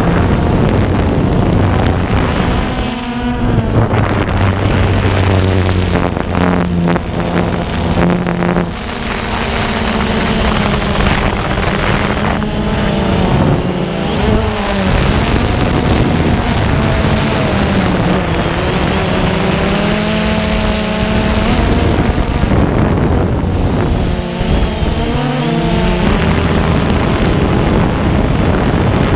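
DJI Phantom 2 quadcopter's four brushless electric motors and propellers whining close to the microphone over a steady rushing hiss. The pitch rises and falls again and again as the motor speeds change in flight.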